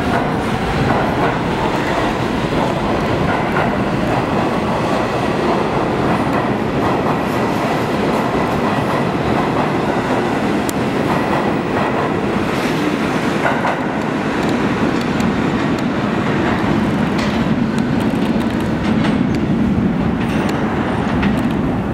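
New York City subway train running out of an underground station past the platform: a loud, steady rumble of steel wheels on the rails that holds until the last car has passed.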